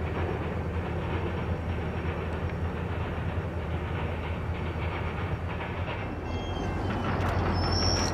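Freight train cars rolling on the rails: a steady rumble with wheel clatter. From about six seconds in, a few thin high squealing tones come in, the brightest near the end.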